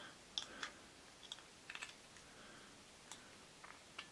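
Faint, scattered light clicks and taps of a small plastic hand fan being handled, about a dozen at uneven intervals.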